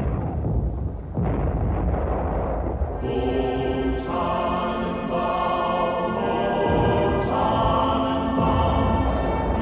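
Booming explosion or gunfire sound effects in the first few seconds, with a second boom about a second in. From about three seconds in, a choir sings sustained chords.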